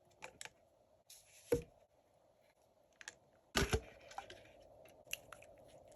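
Close-up handling of a plastic toy and its packaging: small sharp clicks, a brief rustle ending in a thump, and a louder double knock about halfway through.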